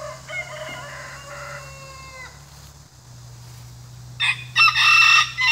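Roosters crowing twice: a fainter crow in the first couple of seconds, then a much louder crow starting about four seconds in.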